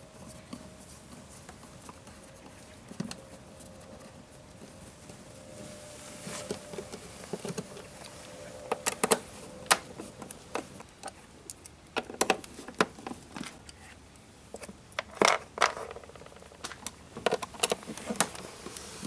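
Hand screwdriver working the Torx screws out of the plastic lid of a BMW E46's engine-bay control-unit box: quiet at first, then irregular small clicks and knocks of metal on screw and plastic from about six seconds in.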